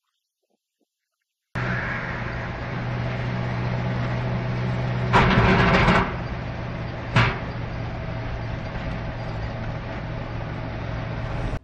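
Dashcam car driving on a highway: a steady hum of engine and road noise heard from inside the cabin, starting suddenly after a second and a half of silence. About five seconds in there is a loud rushing burst lasting under a second, and about seven seconds in a single sharp bang.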